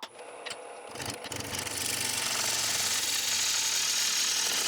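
Wood lathe starting up and running with a steady whirring hiss, building in strength over the first couple of seconds and then holding level.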